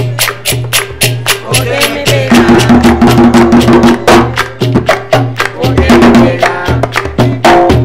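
Bullerengue drumming: hand drums struck with the palms in a steady low beat, with a wooden stick clacking a fast, even pattern of about four strokes a second on top. Voices come in briefly around the middle.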